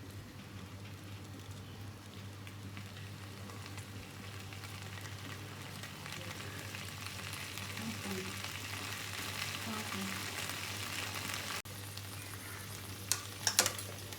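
Chopped okra shallow-frying in oil in an open pan, sizzling steadily. Near the end a spatula clatters and scrapes against the pan as the okra is stirred.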